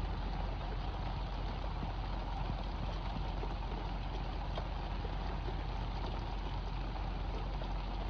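Boat motor idling steadily, with an even hiss of rain falling on the river.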